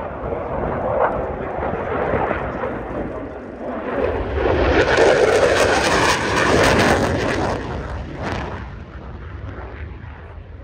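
F-16 fighter jet making a display pass: its jet engine noise swells about four seconds in, is loudest for about three seconds with a sharp hiss on top, then fades away.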